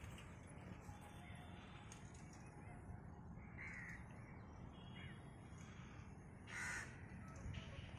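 Crow cawing a few times over low background noise, the loudest caw about two-thirds of the way through.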